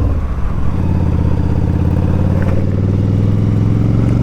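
Yamaha V-Star 1100's air-cooled V-twin engine running on the road. The engine note dips briefly near the start, then holds steady.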